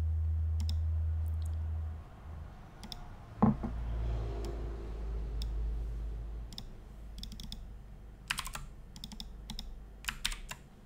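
A low steady hum that stops about two seconds in, a sharp knock a little later, then scattered clicks of a computer keyboard and mouse, thickest near the end.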